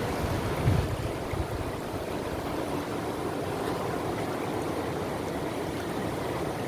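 Steady rush of a flowing river, with a few low bumps near the start.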